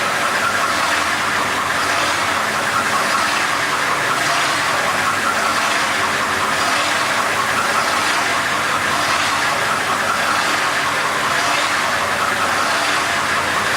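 Spring end wet grinder running steadily, an even mechanical hiss and hum with no change in level.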